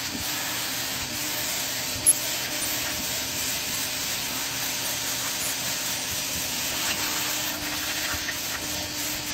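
Upholstery extractor's hand tool drawn across a cloth car seat: the steady suction rush of the extractor's vacuum, with the tool's head rubbing over the fabric. A sharp click about two seconds in.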